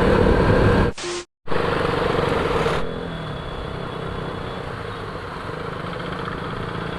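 Motorcycle engine running while riding, with wind rushing over the microphone. It is broken by a brief cut about a second in and settles to a quieter, steadier running sound from about three seconds in.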